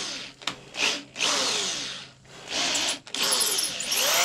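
Old corded electric drill with a 3/16-inch bit boring into raw horn, run in short bursts. The motor's whine rises and falls as the trigger is squeezed and let off, dropping away briefly three or four times.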